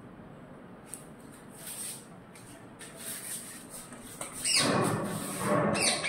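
Parrots giving harsh, raspy squawks, which start about four seconds in, after faint scratching and rustling.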